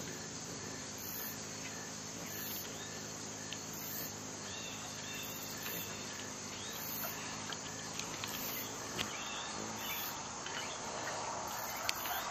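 Outdoor insect chorus: a high chirp pulsing about once a second over a steady low hum. A few short bird calls come in the middle, and there are two small clicks near the end.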